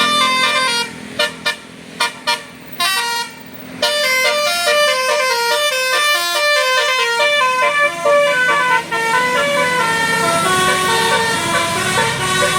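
Bus telolet basuri horn, a multi-tone melodic horn, playing a tune as a rapid run of stepped notes. About a second in it sounds as several short blasts with gaps between, then plays on continuously from about four seconds in.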